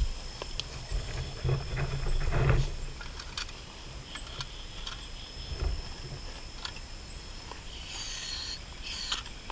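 Night insects keep up a steady high-pitched chorus. Over it come scattered clicks and a few dull thumps, loudest in the first three seconds, as aluminium camping pots and a portable gas stove are handled and set down.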